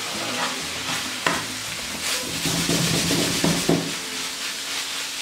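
Minced meat with onion and chard sizzling in a frying pan while a spatula stirs and scrapes it. The spatula knocks sharply against the pan about a second in and again a couple of times after three seconds.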